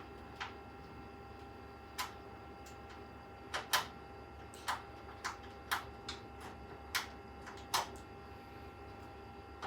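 Scattered sharp clicks, about a dozen at uneven intervals, as a screwdriver works a tight screw out of a PC case's back panel, over a faint steady hum.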